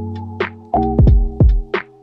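Background music: a steady beat of drum hits over held synth chords.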